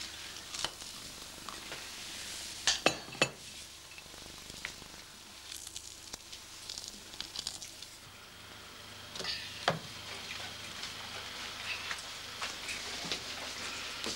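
Breakfast-time kitchen clatter over a steady hiss: a few sharp knocks of a mug and crockery, a pair of them about three seconds in and another near ten seconds.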